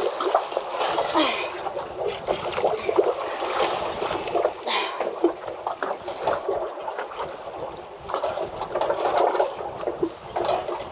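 Water splashing and slapping irregularly against a boat's hull, with sharp splashes every second or two.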